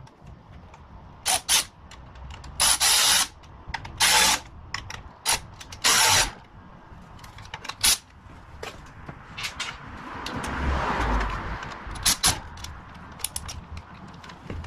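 Workshop handling noise from fitting aluminium motorcycle handguards: scattered clicks and knocks of metal parts and tools, with several short harsh scraping bursts and a longer rough stretch of noise about ten seconds in.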